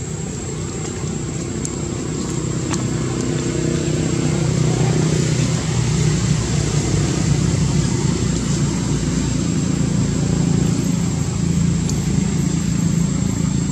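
A motor engine running steadily, a low droning hum that grows louder about four seconds in and then holds, with a thin, steady high-pitched whine above it.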